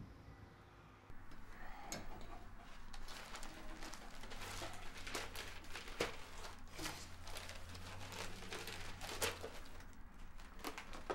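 Papers rustling, with small clicks and knocks, as pages are handled and leafed through at a table, over a low steady room hum.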